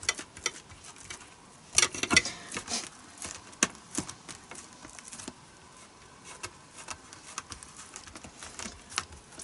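Hands pressing and stretching soft yeast dough out across an oiled silicone mat in a baking tray: irregular soft pats and light taps, with a louder cluster of knocks about two seconds in.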